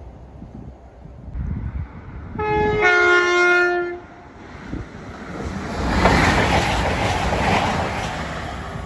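CrossCountry Class 220 Voyager diesel multiple unit sounding its two-tone horn, a higher note then a lower one, for about a second and a half. A few seconds later the train passes close by, its engine and wheel noise swelling to a peak and then easing off.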